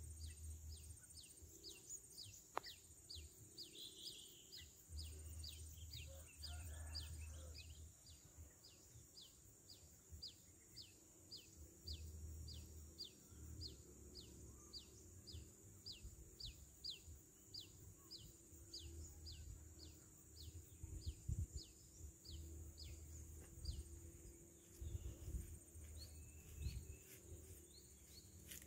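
Faint outdoor marsh ambience: a high, falling chirp repeated steadily about twice a second, over a steady high insect drone, with an intermittent low rumble.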